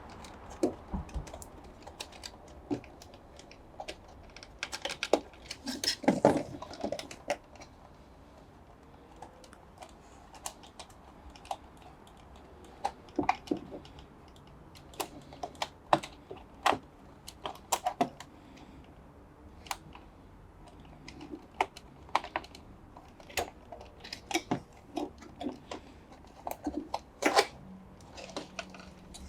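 Irregular light clicks and taps of hands working on a washing machine's parts, reconnecting the control board and its wiring harness clips. There is a busier cluster of clicks around six seconds in and a sharp click near the end.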